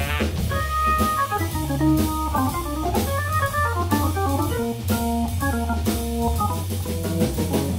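Jazz organ solo: quick runs of short notes over a steady low bass line, with a drum kit and cymbals keeping time.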